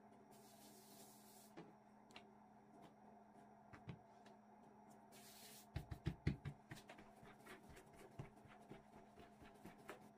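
Hands patting and pressing a stack of floured yufka dough sheets on a wooden table: a quick run of soft thumps about six seconds in, with light taps and rubbing around it. There is a brief hiss near the start and another just before the thumps, over a faint steady hum.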